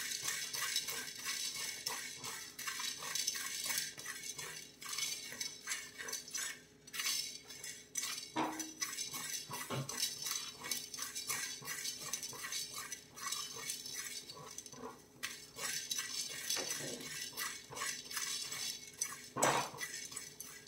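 A metal spoon or spatula scraping and clinking against a metal cooking vessel in quick, continuous strokes, with a few louder knocks.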